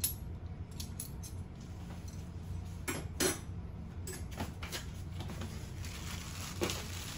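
Stainless-steel rotisserie tongs clinking and knocking as they are handled, a few separate metallic clinks with the loudest about three seconds in.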